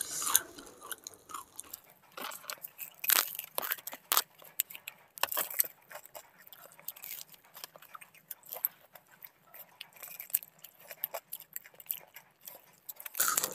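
Chewing and biting into samosas: irregular crisp crunches of the fried pastry, close to the microphone.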